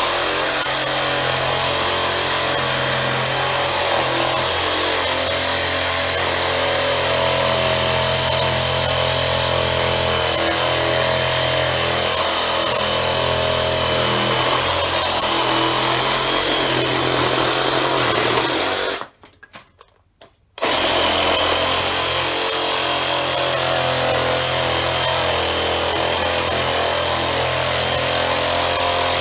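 BLACK+DECKER BDCR18N 18 V cordless reciprocating saw running steadily, its wood blade cutting down through a thick pressure-treated timber post. It stops for about a second and a half about two-thirds of the way through, then starts cutting again.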